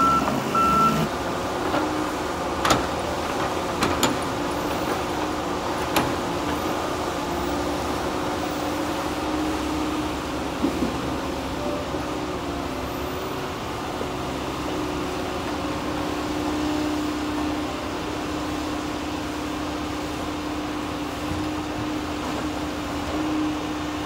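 Tigercat 234B knuckleboom log loader's diesel engine running steadily under hydraulic load as it swings its grapple, with a few sharp knocks about 3, 4 and 6 seconds in.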